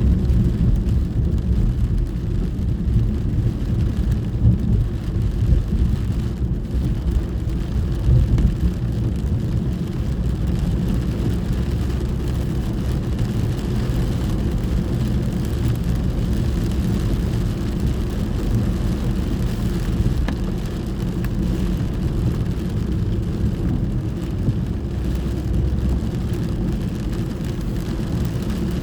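Steady low rumble of a moving car heard from inside the cabin, with a faint even hiss of rain on the car over it.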